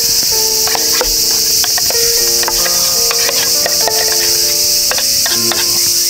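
Cicadas droning steadily and loudly. Over them runs background music of held notes, with light clinks and scrapes of a spoon against a stainless-steel mess tin as cooked rice is scooped out.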